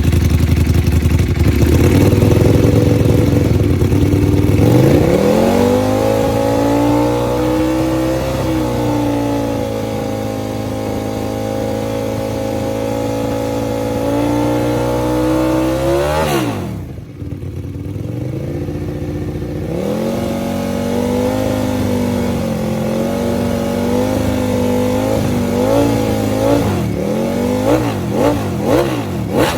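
Ducati Panigale V4 R's V4 engine running through a full titanium exhaust system, revved and held at a steady raised speed. About 16 s in the revs drop back to a low, quieter running note, and near the end come several quick throttle blips.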